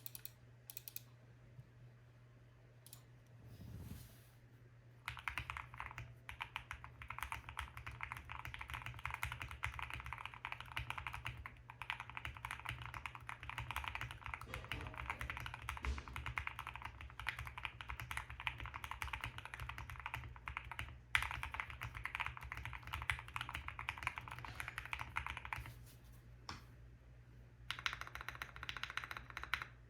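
Custom QwertyKeys QK65 mechanical keyboard with lubed and filmed C³Equalz Tangerine 67g linear switches on a POM plate, with PBT keycaps, typed on: a few single key presses, then fast continuous typing from about five seconds in, with a short pause near the end before it resumes. The keystrokes have a thocky sound.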